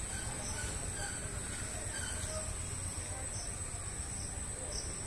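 Outdoor ambience: a steady high-pitched insect drone over a low rumble, with a few faint short chirps scattered through.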